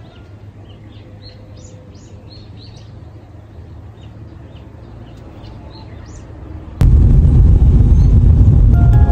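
Small birds chirping in many short, repeated calls over a low background hum. About seven seconds in, a sudden, very loud rushing noise, heaviest in the low end, cuts in and drowns them out.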